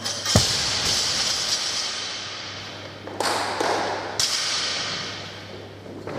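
Barbell with rubber bumper plates dropped onto the gym floor, landing with one heavy thud about half a second in. Two lighter knocks of the bar on the floor follow, around three and four seconds in.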